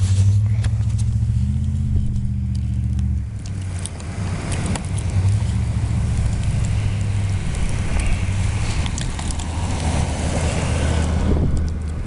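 A car engine runs with a steady low hum for the first few seconds. Then the noise of a vehicle's tyres on a snowy street builds up and peaks near the end, with scattered crunching clicks from footsteps in snow.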